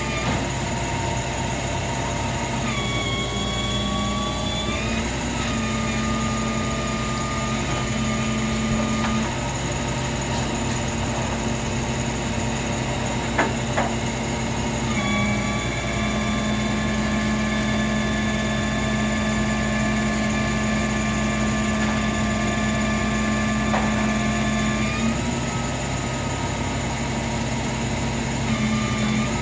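A motor running steadily, its pitch stepping up and down a few times, with two sharp clicks about halfway through.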